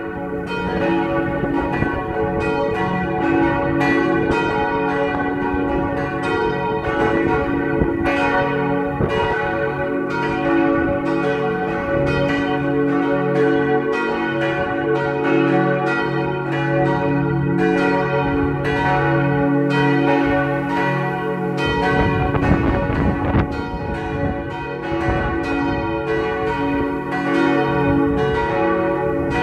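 Three 1964 Otto church bells, tuned C-sharp, F-sharp and A-sharp, swinging and ringing together as a partial peal for Sunday service. Their strokes overlap in a dense, uneven stream over the lasting hum of the bells.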